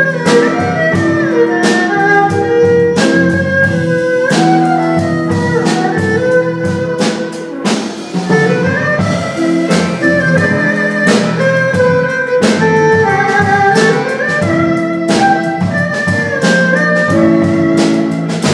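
Instrumental jazz music: a pitched melody line moving over held low notes, with drums keeping a steady beat.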